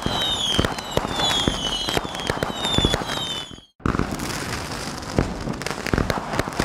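Fireworks going off: a dense run of sharp bangs and crackles with several short whistles falling in pitch. The sound drops out briefly about three and a half seconds in, then more bangs and crackling follow without the whistles.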